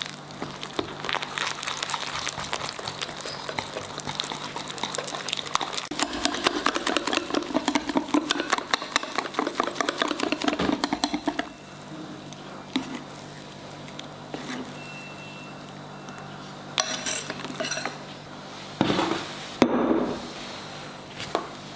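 Pancake batter being stirred briskly in a bowl, the utensil clicking rapidly against the bowl, for about ten seconds. Then come a few scattered clinks and knocks, the loudest near the end.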